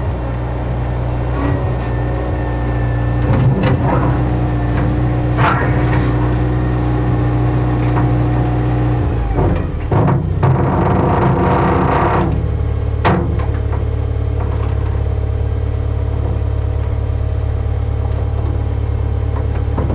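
Bobcat 642 skid-steer loader's engine running steadily as the machine drives up, then dropping to a lower, even idle about twelve seconds in. There are a few light clanks, and a sharper single clunk just after the engine drops to idle.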